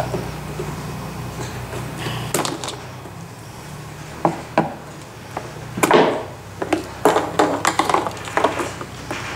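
Scattered sharp clicks and knocks of a screwdriver and hands working wiring-harness clips loose from a removed Jeep Gladiator front bumper. They come closer together in the second half.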